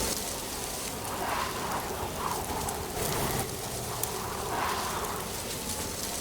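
Autumn wind with rustling dry leaves: a steady, dense hiss that swells in gusts every few seconds.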